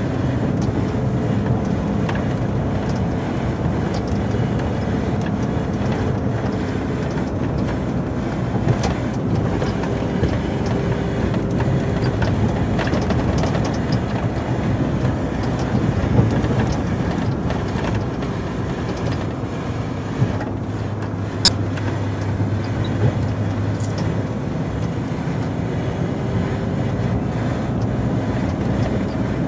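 Volvo FH 440 plow truck's inline-six diesel engine running steadily under way, heard from inside the cab, with the rumble of the truck driving over snow. One sharp click about two-thirds of the way through.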